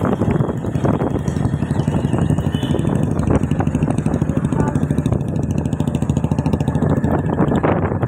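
Motorcycle engine running steadily under way, heard from on the bike, with a fast, even throb.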